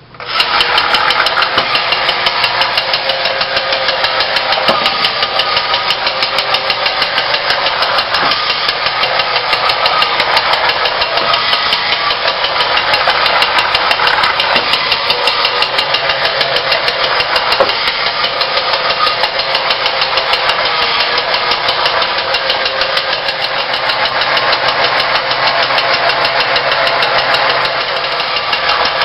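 ME-102 Astronef battery-operated tin toy spaceship switched on, its small electric motor and gears running with a steady, loud whirring buzz through the tin body as it drives the bump-and-go action and the blower that floats the styrofoam ball. A few light knocks as it bumps the enclosure's walls.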